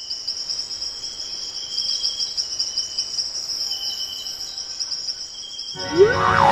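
A steady, high, fast-pulsing chorus of insects chirping, starting and stopping abruptly. Just before the end it cuts off and rising cartoon-style sound effects and music come in.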